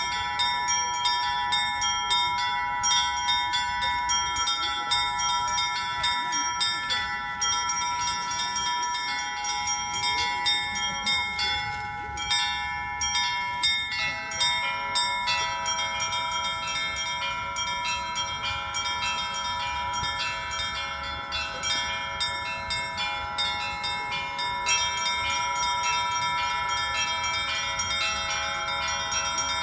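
Russian-style bell ringing (zvon): a set of bells struck by one ringer, small bells in a fast, continuous pattern over the longer ringing of larger bells. About halfway through, lower-pitched bells join in.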